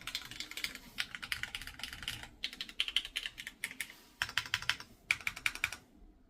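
Typing on an Owlab Hellcat Alice-layout mechanical keyboard with Gateron Fades switches: fast runs of keystrokes with short pauses, stopping shortly before the end.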